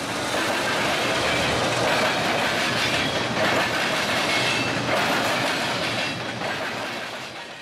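Freight train passing close by: a CSX diesel locomotive goes by, then a string of steel gondola cars, their wheels rumbling and clattering on the rails. The noise fades near the end.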